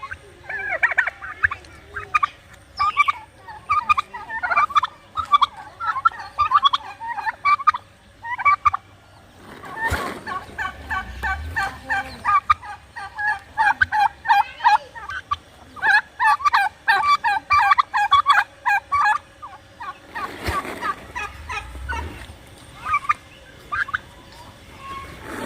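Turkeys gobbling: rapid rattling gobbles in two long runs, with a pause of about a second between them and a few shorter gobbles near the end. Two or three brief low rumbles break in along the way.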